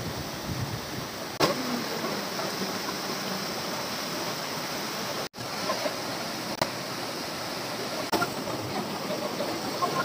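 Rushing water of a monsoon waterfall cascading over rocks: a steady, even rush that cuts out for an instant about halfway through.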